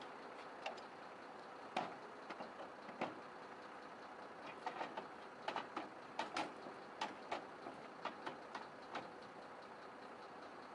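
Irregular metal clicks and clanks as a truck tail lift's platform section is folded up by hand, over a faint steady hum.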